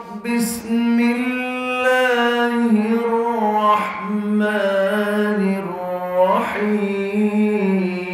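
A man reciting the Quran in a long melodic chant (tilawat), holding drawn-out notes with ornamented turns between them.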